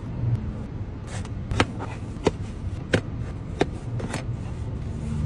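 A knife cutting down through a watermelon slice, its blade knocking on the tray five times at an even pace, over a steady low hum.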